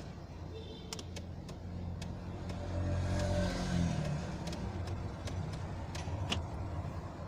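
Car engine running, swelling briefly in pitch and loudness about three seconds in, with several sharp clicks scattered over it.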